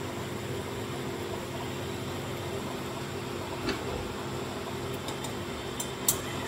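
A metal slotted spatula clinking against a metal frying pan while lifting fried fritters out of the oil: a light clink about halfway through and a sharper one near the end, over a steady mechanical hum.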